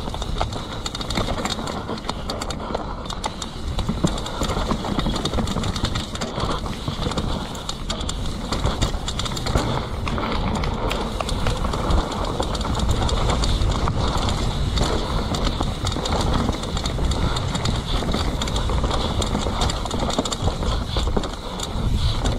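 Mountain bike descending a dirt forest trail at speed: knobby tyres rolling over dirt and leaves in a continuous rush, with frequent clattering knocks from the bike over roots and bumps.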